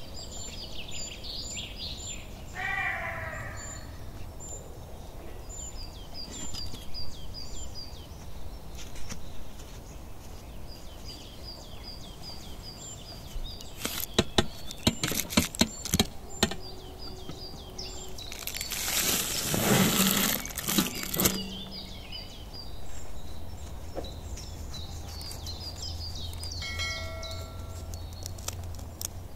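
Small birds chirping, short high notes repeated in quick runs. About halfway through comes a run of sharp clicks, the loudest sounds here, followed a few seconds later by a burst of noisy rustling.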